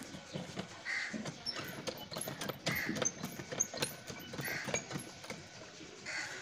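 Crows cawing, a call every second or two, over scattered sharp clicks and knocks.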